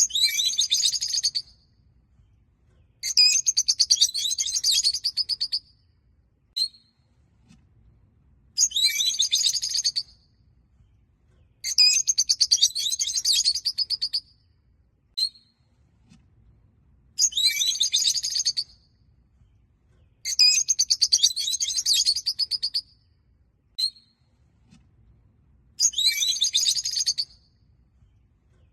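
A small flock of peach-faced lovebirds chirping. Bursts of rapid, high-pitched chirps, each a second or two long, come every few seconds, with single short chirps in the gaps between.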